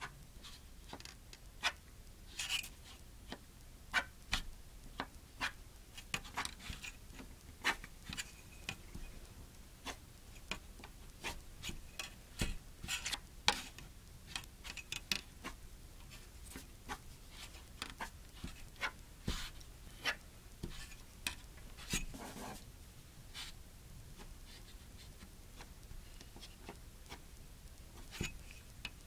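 Pencil drawing lines on paper against a steel ruler: short, irregular scratching strokes, some quick and some drawn out, with a few sharper clicks among them.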